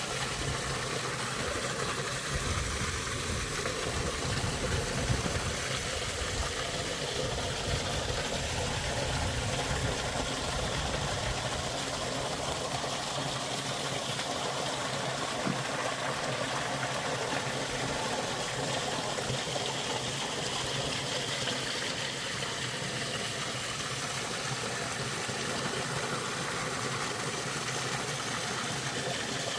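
River water running steadily under and through an opening in the ice, a constant rushing and gurgling with a low rumble during the first third.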